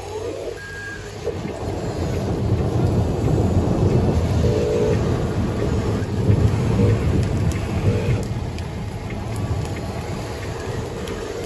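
Rolling rumble of thunder that builds, peaks about halfway through and eases off, over a steady hiss of rain.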